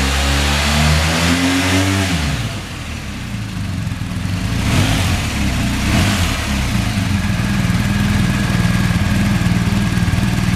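BMW R 1250 GS's 1254 cc boxer twin running: a higher, slightly rising note for about two seconds that drops to a steady idle, with two brief throttle blips around five and six seconds in.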